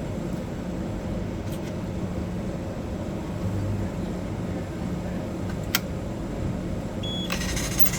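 Fresh orange juice vending machine humming steadily as it runs its pouring cycle, with a single sharp click a little before six seconds in. Near the end a hiss starts, together with a short high tone.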